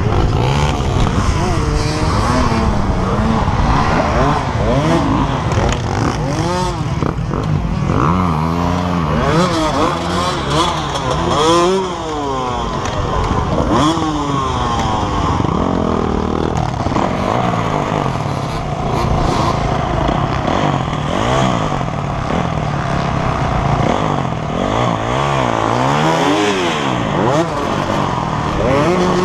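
Dirt bike engine revving hard in repeated rising and falling bursts as the bike is worked over a stack of logs.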